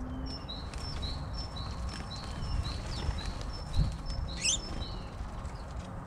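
A bird calling a steady series of short, high two-part chirps, about two a second, over a low background rumble, with one sharper chirp a little past the middle.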